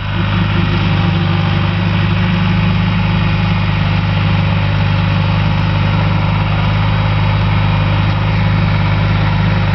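East Wind 254 compact tractor's diesel engine running at a steady speed while driving its slasher, a constant low hum that neither rises nor falls.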